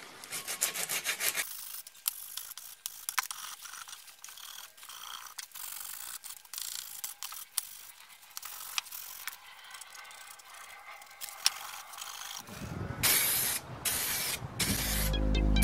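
A rag rubbing and scraping inside a 1959 Morris Minor's steel rear axle casing, with small clicks of metal. Near the end come a few short, louder hissing bursts from an aerosol spray-paint can.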